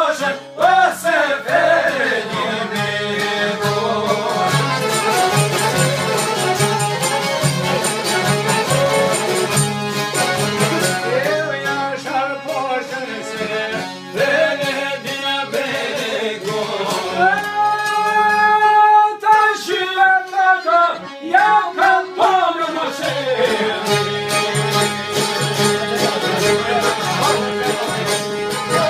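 Albanian folk song: men singing together to strummed long-necked lutes and a violin, with a long held sung note past the middle.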